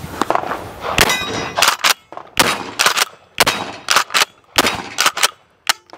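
Kel-Tec KSG bullpup pump-action shotgun being fired repeatedly: a quick series of about a dozen sharp cracks and clacks of shots and the action, mixed with metallic clangs that ring on briefly, one of them about a second in.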